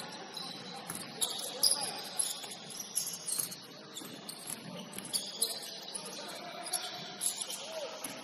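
Basketball game sounds: sneakers squeaking on the court in many short, high squeaks, the ball bouncing in sharp thumps, and scattered players' voices.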